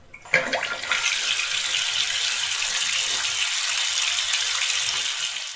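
Water gushing and splashing as it drains down a pipe, standing for household wastewater flowing through a gravity drain. It starts with a splash about a third of a second in, runs steadily, and cuts off suddenly near the end.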